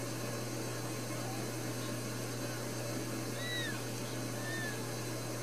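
Newborn Ragdoll kittens giving a few short, thin, high-pitched mews that rise and fall, the clearest about three and a half seconds in, over a steady low hum.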